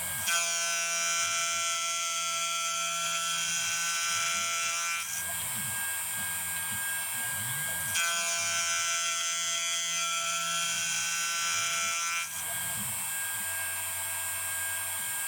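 Stepper motors of a home-built, Arduino-controlled desktop CNC mill driving its axes: a steady whine of many tones that changes its pitch pattern about five seconds in, switches back at about eight seconds and changes again at about twelve, as the machine moves from one motion to the next.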